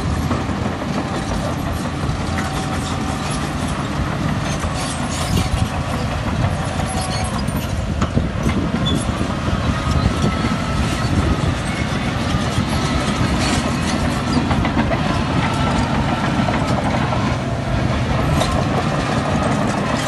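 Heavy diesel earthmoving machine working: a steady low engine drone with continual metallic clanking and rattling over it.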